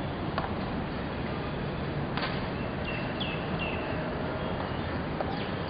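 Steady outdoor background hiss, broken by a few faint clicks and, about halfway through and again near the end, a few short high chirps that slide down in pitch.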